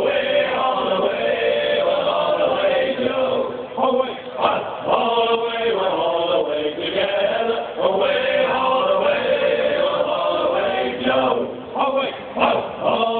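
A group of men singing a sea shanty together, unaccompanied and in harmony, with long held notes.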